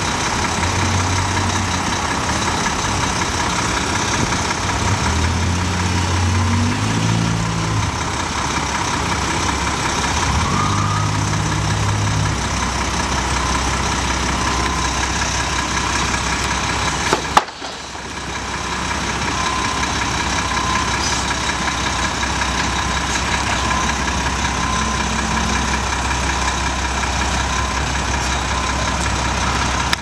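Heavy diesel engines of a Mack dump truck and construction machinery running near idle. The low engine note steps up and down several times in the first dozen seconds, then settles into a steady hum. A single sharp knock comes about seventeen seconds in.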